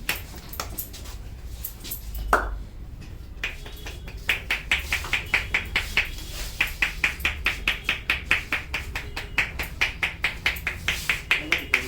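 Head massage: a masseur's hands strike the head in a quick, even rhythm of about four sharp strikes a second, starting about three and a half seconds in after a few scattered clicks.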